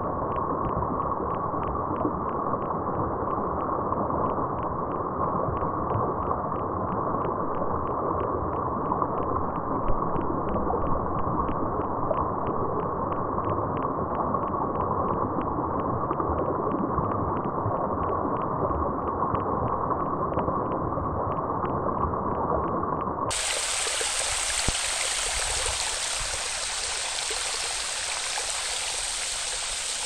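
Shallow stream water rushing and trickling over rock ledges in a small cascade. For most of the stretch it sounds muffled and low, with a faint regular tick about twice a second; about three-quarters of the way through it turns suddenly into a clearer, hissing splash.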